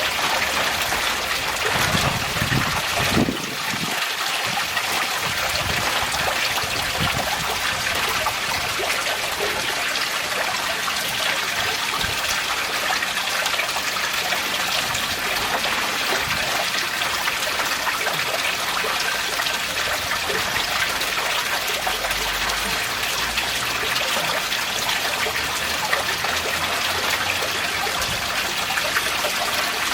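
Koi pond water trickling and splashing steadily, a continuous flow of water running into the pond. A few low bumps come about two to three seconds in.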